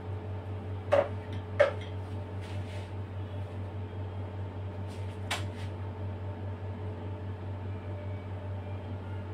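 Steady low hum, with a few sharp clicks from tools and cake being handled on the counter: two close together about a second in, the second the loudest, and one more about five seconds in.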